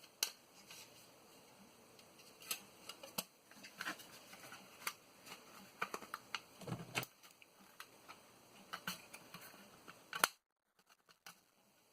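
Irregular small clicks and scrapes of a floppy disk drive's metal and plastic parts being handled and worked at during disassembly, while trying to free a stuck part. The sound cuts out briefly about ten seconds in.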